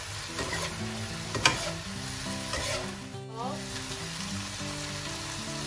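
Metal spatula stirring and scraping cabbage and chana dal around a wok, with the vegetables sizzling as they fry. There is a sharp clack of the spatula against the pan about one and a half seconds in.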